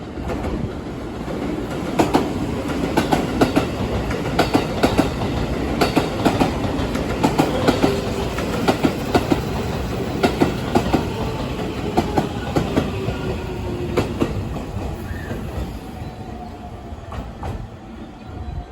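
Electric commuter train running along the platform, its wheels clacking over rail joints again and again, with a faint motor whine that falls slowly in pitch through the second half.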